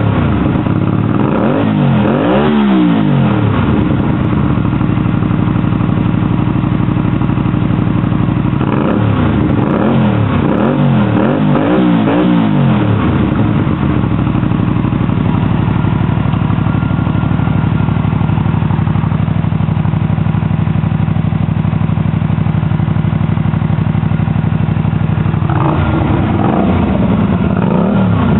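Hyosung cruiser motorcycle running through its new exhaust muffler, idling steadily and blipped up and down in quick clusters of revs in the first few seconds, again about ten seconds in, and near the end.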